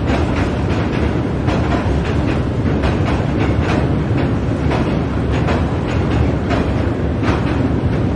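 Train passing over a steel bridge: a loud, steady rumble with repeated sharp clacks of the wheels over the rail joints.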